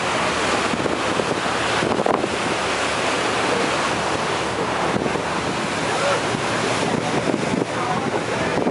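Steady rush of wind buffeting the microphone, mixed with the churning of the boat's wake water, on the open deck of a moving passenger boat.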